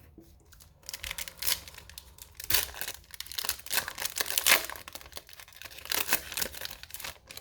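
A foil trading-card pack wrapper being torn open and crinkled by hand: a run of irregular crackling rips and rustles that starts about a second in.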